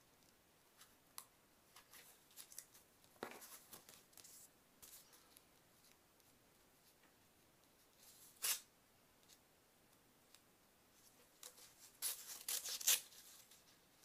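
A knife slitting open a mailing envelope, with short rasps of paper or card tearing and rustling: a sharp rasp past halfway and a cluster of rasps near the end.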